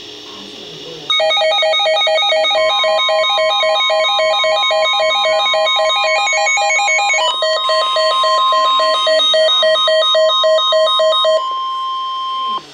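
NOAA Weather Radio alert: the steady 1050 Hz warning alarm tone that announces a warning broadcast, with a receiver's electronic alert alarm beeping rapidly in alternating pitches over it. The pulsing alarm starts about a second in and stops about a second before the steady tone, which then cuts off suddenly.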